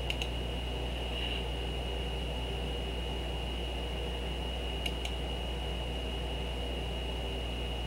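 Steady low electrical hum and hiss with a thin high whine, as from a computer and its microphone. Computer mouse clicks cut through it: a quick pair at the start and another pair about five seconds in.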